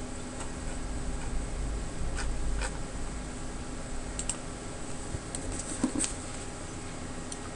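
A few scattered computer mouse clicks, some in quick pairs, over a steady electrical hum and microphone hiss.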